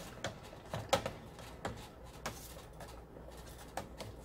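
Metal whisk stirring thick barbecue sauce in a large stainless steel stockpot: irregular clicks and scrapes of metal against the pot, with soft wet stirring.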